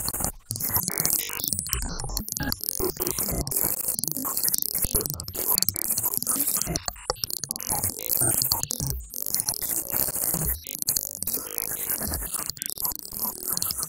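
Experimental electronic music, choppy and full of irregular clicks and low thumps over a steady high hiss.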